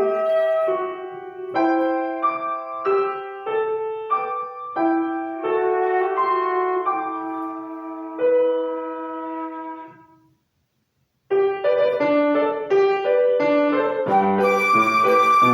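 Piano playing a lively classical piece with struck notes. About ten seconds in the music dies away into a second of dead silence, then starts again abruptly and busier.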